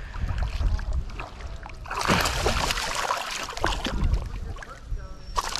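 Hooked largemouth bass thrashing and splashing at the surface close by, with water sloshing around the wading angler. The splashing is loudest from about two seconds in until past four seconds, with a sharp splash near the end.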